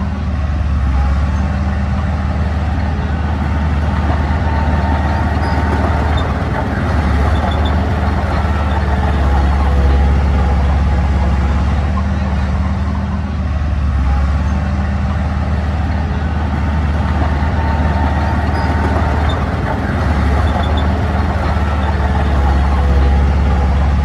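Mini bulldozer's diesel engine running continuously under working load, a deep steady hum that swells and eases every several seconds as the machine pushes soil.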